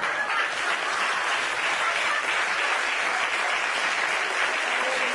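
Studio audience applauding, a steady wash of many hands clapping.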